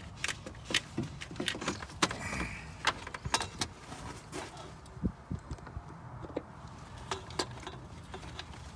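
Irregular metallic clinks, knocks and a short scrape as a loose car starter motor is worked out of a cramped engine bay, knocking against the surrounding metal.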